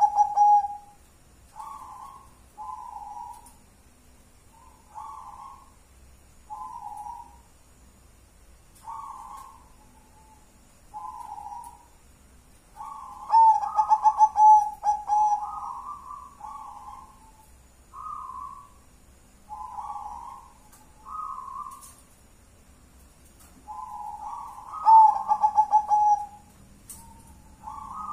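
Zebra dove (perkutut) cooing: a run of short soft coos, about one a second, broken twice, about halfway and near the end, by a louder phrase of rapid stuttering notes that runs into a longer held coo.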